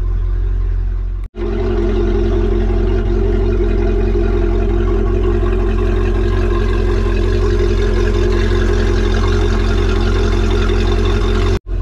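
MerCruiser stern-drive boat engine idling steadily on flushing muffs, warming up toward its 160–175 °F operating temperature so the thermostat opens. The sound cuts out for an instant about a second in and again near the end.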